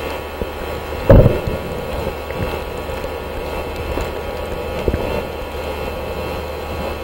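Muffled underwater noise picked up by a camera held below the surface: a steady low rumble and hiss, with a sharp thump about a second in and a lighter knock near five seconds.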